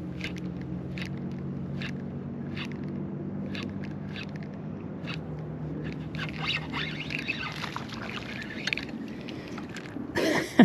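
A steady low mechanical whir with a short click about once a second, from tackle or drive on a fishing kayak. It gives way to scraping and rattling a few seconds before a sudden louder commotion near the end, just as a fish comes on.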